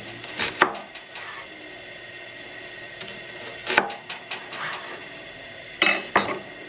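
Kitchen knife knocking on a wooden cutting board while slicing onions: a few sharp knocks in small clusters, a second or more apart.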